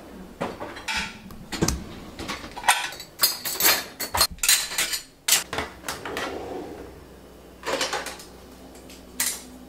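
Crockery and cutlery clinking and knocking as a dishwasher is unloaded, a dense string of sharp clatters. After a pause, a few more knocks come near the end as utensils are put away in a kitchen drawer.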